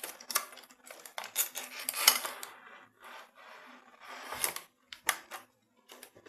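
A small parcel being handled and opened by hand: irregular rustling, scraping and small knocks as the packaging is pulled open and emptied.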